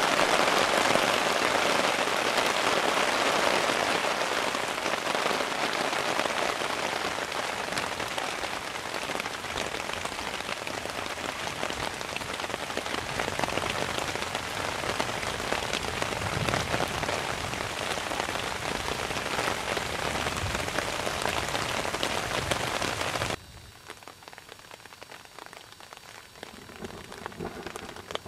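Heavy rain in a downpour, a dense steady hiss. About 23 seconds in it drops suddenly to a much quieter rain.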